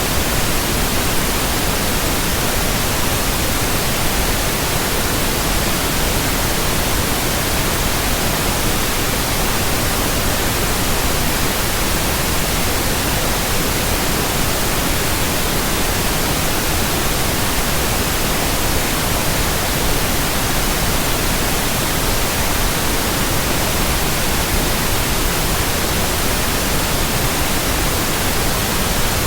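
Pure white noise: a steady, even hiss across all pitches that does not change.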